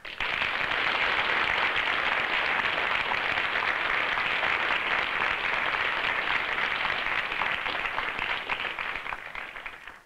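A lecture-theatre audience applauding, a dense steady patter of many hands clapping that starts abruptly and fades out near the end.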